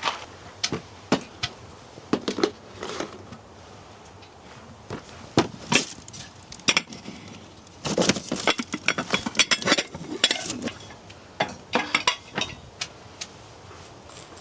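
Camping cookware and utensils clinking and knocking together in irregular bursts, with the busiest clatter about eight seconds in.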